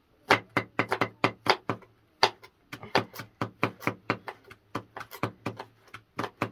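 Kitchen knife chopping fresh leafy greens against a wooden board: a quick, uneven run of sharp knocks, about four chops a second.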